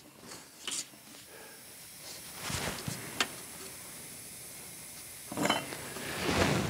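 A steel rule and a metal square sliding and being set down on the sawn end of an oak log. Soft scraping, with a few light clicks.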